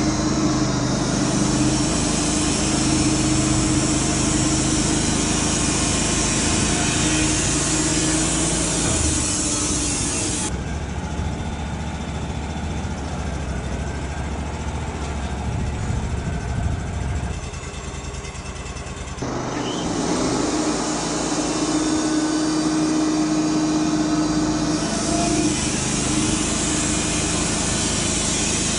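Portable bandsaw sawmill running slowly through an English walnut log: a steady engine note with the hiss of the band blade cutting. About ten seconds in the blade hiss stops abruptly, leaving a lower engine hum, and it comes back just as suddenly about nine seconds later.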